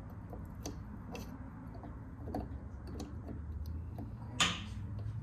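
Irregular light metallic clicks and taps of a wrench working a nut loose on an outboard motor, with one louder sharp clack about four seconds in.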